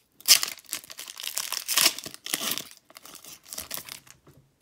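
Wrapper of a Panini Prizm basketball card pack crinkling and tearing as the pack is ripped open. It is a string of crackling rustles that stops about four seconds in.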